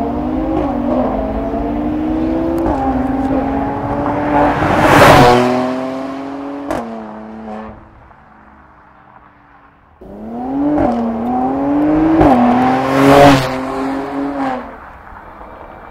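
Mercedes-AMG C43's M276 twin-turbo 3.0-litre V6, breathing through a Stone eddy catalytic downpipe, accelerating hard through the gears. Its note rises and drops back at each upshift. It passes loudly about five seconds in and fades; a second run starts about ten seconds in, passes loudly about thirteen seconds in and fades again.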